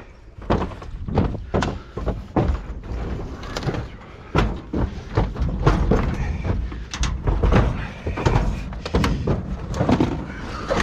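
Repeated irregular knocks and clanks of sheet metal, several a second, as old household appliances are handled and taken apart for scrap.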